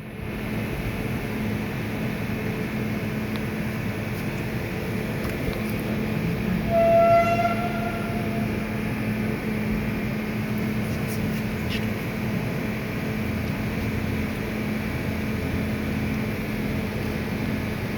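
Gildemeister CTX 600 CNC lathe running with a steady machine hum. About seven seconds in, a brief high whistling tone sounds for a second or so over the hum.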